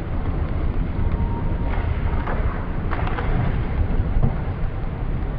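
Steady low rumbling road-and-wind noise of a motorbike ride through street traffic, with a few faint clicks and a brief faint tone near the start.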